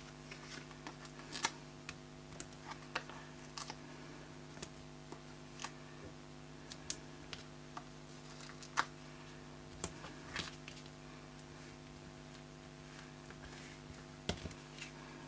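Scattered light clicks and rustles of cardstock being handled and foam adhesive dots being peeled and pressed onto the paper, over a steady electrical hum.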